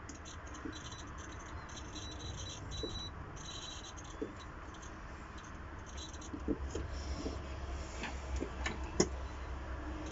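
A multimeter probe scratching against a power cable's earth conductor while the meter's continuity buzzer stutters on and off in short high crackles, showing contact on the earth wire. In the second half come several sharp clicks and knocks as the leads and cable are handled.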